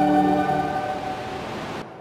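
A choir holding the final chord of a hymn, fading away, then cut off sharply near the end with a short tail dying out.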